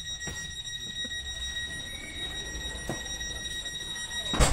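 Steady high-pitched warning tone of a Stadler FLIRT ER160 electric multiple unit's doors, signalling that the doors are closing. It stops near the end with a loud thump as the doors shut.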